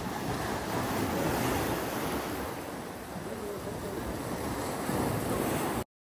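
Sea waves breaking and washing over shoreline rocks, a steady rushing surf that swells about a second in, then cuts off suddenly near the end.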